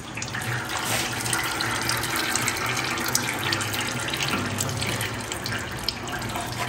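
Automatic transmission fluid pouring in a steady stream from a tipped transmission pan into a drain tray, splashing into the fluid already collected there.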